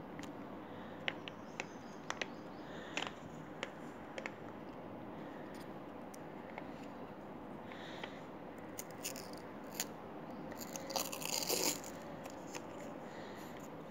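Fingers handling a plastic Kinder Creamy snack cup: scattered light clicks and taps of plastic, then a short crinkling rustle near the end as a label flap on its base is peeled back.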